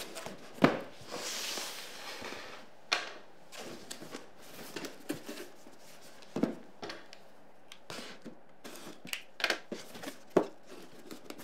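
Cardboard boxes handled on a wooden tabletop: scattered knocks and thuds as boxes are set down and turned, with a stretch of cardboard scraping and rustling about a second in.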